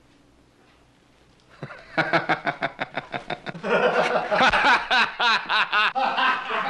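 A man laughing loudly in a quick, rhythmic run of ha-ha's. It breaks out about a second and a half in and grows louder and fuller about halfway through.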